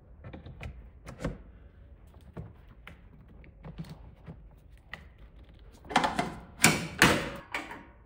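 Clicks and knocks of heavy electrical plugs being pushed into wall and panel receptacles and cords being handled, with a louder run of clatter in the last two seconds.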